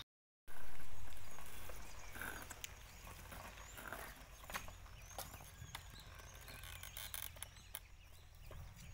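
Outdoor ambience: small birds chirping over a steady low rumble. It opens with a brief dropout, then a loud rumble that fades over about two seconds.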